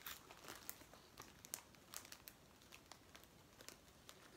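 Faint, irregular crinkling of a clear plastic bag of corn puffs being handled.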